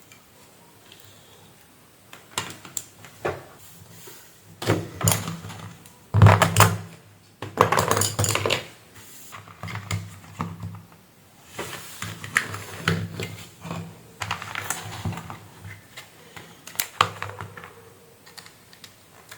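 Irregular clicks, taps and clattering of small hard objects being handled on a workbench, as a charger cable is connected to a repaired tablet; loudest about six to nine seconds in.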